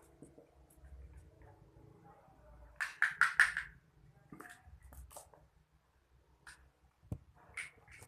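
A bottle of clear glue squeezed out into a container: faint handling noise, with a quick run of four sputtering squirts about three seconds in and a few single clicks later.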